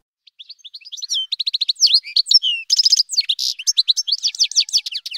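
A songbird singing a long, varied song of quick high whistled notes broken by rapid trills of repeated notes.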